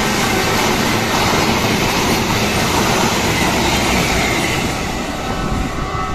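Argo Wilis passenger train passing close by: a loud, steady rush of wheels on rails with some clatter, starting to fade away near the end.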